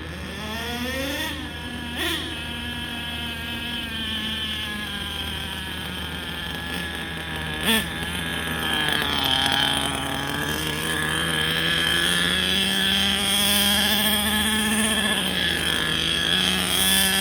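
An engine running and revving in slow swells: the pitch climbs in the first second, holds, sags, then rises gradually for several seconds before dropping back, with a big echo. A sharp click comes about two seconds in and a louder snap just before the eight-second mark.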